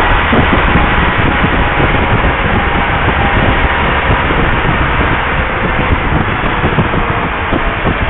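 Steady rush of wind on the microphone of camera glasses worn while riding, with a vehicle engine running underneath.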